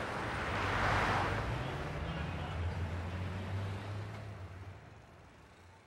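A vehicle going by: a rush of noise swells about a second in, then a low engine hum carries on and fades away.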